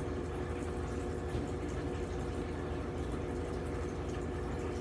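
Aquarium water filter running steadily: a low hum with a few faint steady tones and a trickle of water.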